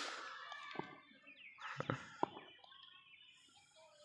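Quiet open-air ambience at a cricket ground: a few sharp knocks about two seconds in, short high chirps and faint distant voices.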